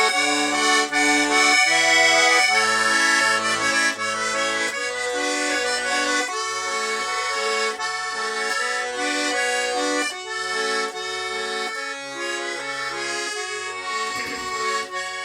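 Accordion playing an instrumental interlude between verses of a folk war song: a sustained melody over low bass notes alternating with chords, in a steady beat.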